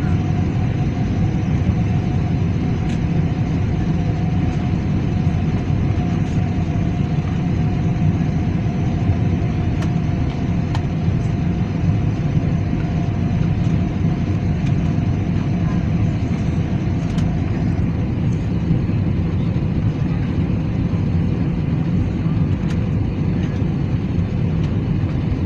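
Steady engine and airflow noise heard inside a jet airliner's cabin during the approach to land. A faint steady whine in the mix stops about two-thirds of the way through.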